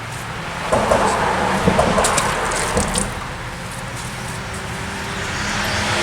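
Road traffic noise: a steady wash of passing cars, with a vehicle swelling louder near the end. A few short knocks and rustles of handling come in the first three seconds.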